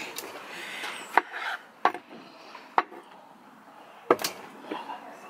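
Chef's knife knocking against a wooden cutting board: about five sharp, separate knocks roughly a second apart while roasted vegetables are cut and moved.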